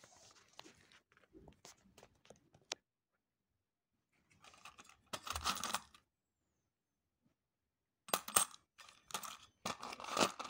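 Loose old coins and small metal finds clinking and scraping in a round metal tin as fingers stir through them. A short rattle comes a little before halfway, then a pause, then a run of clinks near the end.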